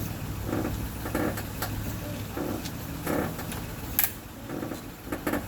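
Honda Odyssey 3.5 V6 idling as a steady low hum, with a faint repeating mid-pitched noise over it and one sharp click about four seconds in.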